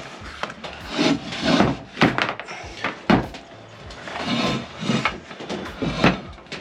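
Rubber rim gasket being pulled and worked out of a spoked motorcycle wheel rim: a run of irregular rubbing and scraping strokes, roughly one a second.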